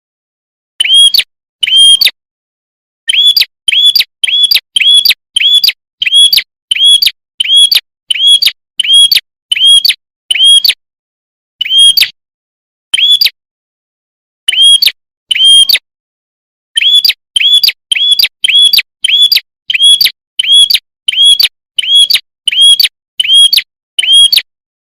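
Prenjak kepala merah lure call: short, loud, clear chip notes repeated in fast runs of about one to two a second, with a few short pauses between runs.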